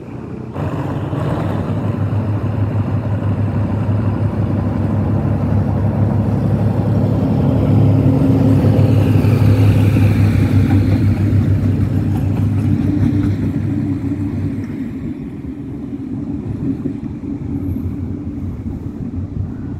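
Diesel locomotives passing close at low speed. A steady, low engine drone builds to its loudest about halfway through, then fades as they move away.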